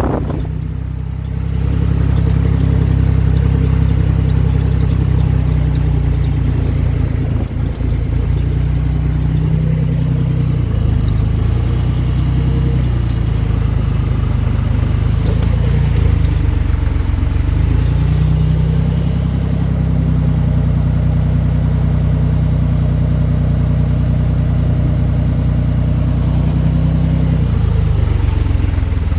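Tractor engine running steadily while it works a trailed bale wrapper.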